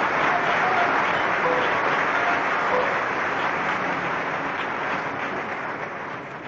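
Concert hall audience applauding, the clapping slowly dying down.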